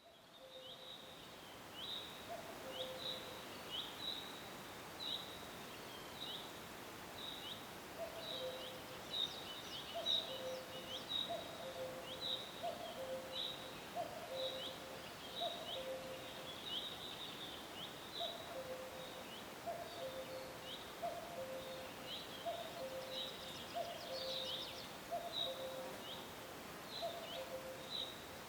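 Common cuckoo calling its two-note "cuck-oo", the second note lower, repeated about once a second from a few seconds in. A small songbird repeats short high falling chirps about twice a second over a steady forest hiss.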